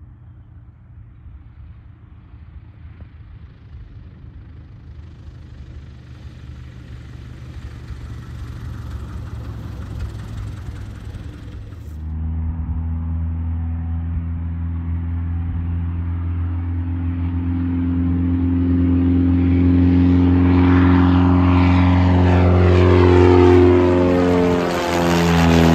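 Small high-wing taildragger plane's piston engine and propeller: first a low, steady drone at reduced power as it comes in to land on a grass strip, slowly getting louder. About halfway it cuts abruptly to the engine at full takeoff power, much louder and steadier, growing louder still as the plane climbs out overhead.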